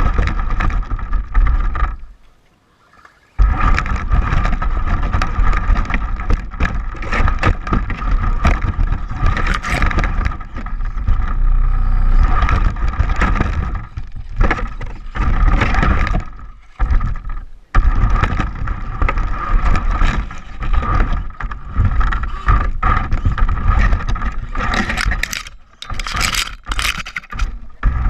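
Electric RC short-course trucks (Traxxas Slash 4x4) driving over desert ground: a steady motor whine with tyre and gravel scraping, and wind on the microphone. The sound cuts out briefly about two seconds in.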